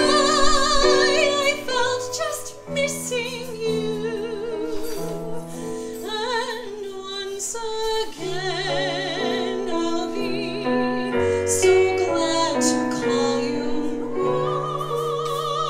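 A woman singing a musical-theatre song with marked vibrato on her held notes, accompanied by piano played on a digital keyboard.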